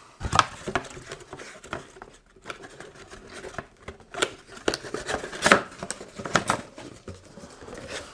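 Cardboard box being handled, its flaps folded and pushed shut: irregular scrapes, rustles and light knocks of cardboard.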